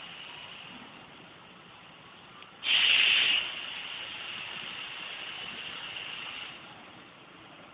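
Compressed air hissing from an industrial pneumatic machine: a short, loud blast about three seconds in, easing into a steadier hiss that dies away a few seconds later, over a constant faint high hiss.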